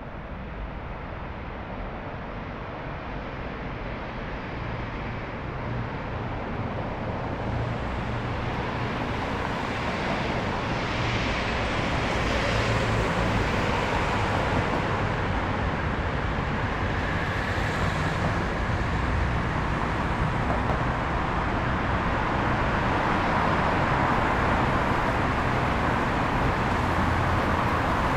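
Road traffic noise: a steady wash of passing cars with a low rumble, swelling gradually louder over the first half as vehicles go by.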